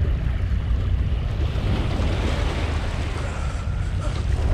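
Wind buffeting the microphone in a steady low rumble, with small waves washing over shoreline rocks.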